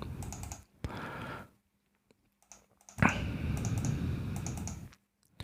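Laptop keyboard and touchpad clatter: three stretches of quick tapping, the longest about two seconds, with short quiet gaps between.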